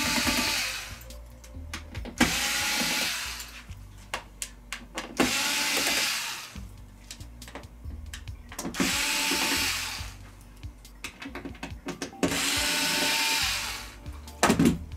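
Cordless power screwdriver running in six short whirring bursts, one every two to three seconds, backing out the TV's bracket screws one after another, with small clicks between bursts.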